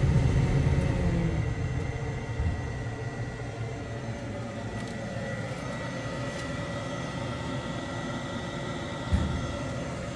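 Power-vent blower motor of a John Wood gas water heater running steadily with the burner lit: a steady hum with a thin high tone. A louder low rumble eases off over the first two seconds, and a single knock comes about nine seconds in.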